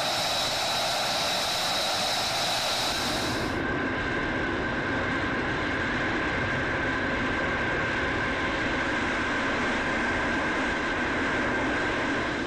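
F-35A's F135 turbofan running at ground idle: a steady rush with a high whine that gives way to a lower steady tone about three and a half seconds in.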